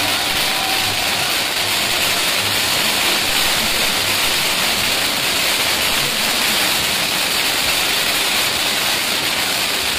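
A loud, steady, even hiss that does not change, with no pops or bangs.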